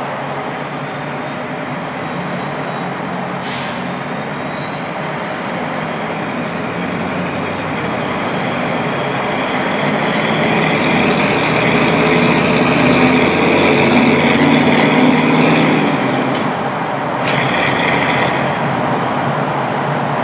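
Turbocharged Ford 7.3 IDI V8 diesel under load, its turbo whistle climbing in pitch and getting louder over the engine's drone, then dropping in pitch and fading after about sixteen seconds, with a sudden change in the whistle a second later.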